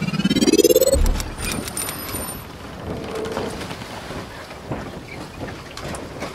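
Logo intro sound effects. A rising swoosh over the first second ends in a low boom, followed by a brief high shimmer and then a steady hiss with scattered crackles.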